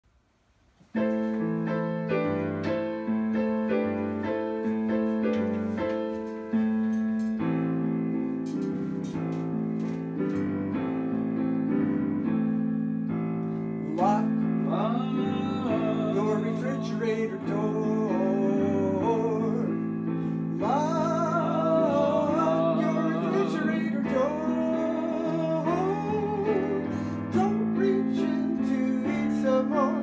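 Digital piano playing chords as an introduction. About halfway through a voice starts singing a song, with an acoustic guitar joining the piano.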